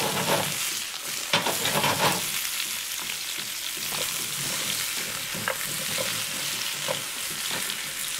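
Peeled new potatoes sizzling as they stir-fry in untoasted sesame oil in a frying pan, a steady hiss. The pan is shaken and the potatoes turned with a wooden spatula, with clattering knocks in the first two seconds and a few light taps after.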